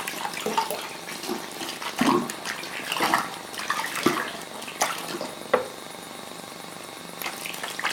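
Sticky homemade slime being handled: irregular wet, squelching clicks and smacks.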